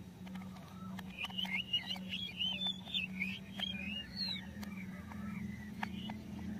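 Plastic toy screw squeaking as it is twisted with a plastic toy screwdriver, a run of short wavering squeaks, one for each twist, with light plastic clicks from the screwdriver in the screw head.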